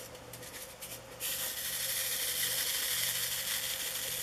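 Small plastic diamond-painting drills rattling in a plastic sorting tray: a few light clicks, then from about a second in a steady, dense, scratchy rattle as the drills are jiggled in the tray.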